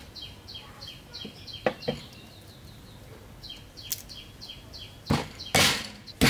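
Garlic cloves crushed with a cleaver on a wooden chopping board: three loud knocks near the end. Before them comes a couple of light cracks as a garlic bulb is broken into cloves, while a bird repeats short falling chirps, about five a second, in two runs.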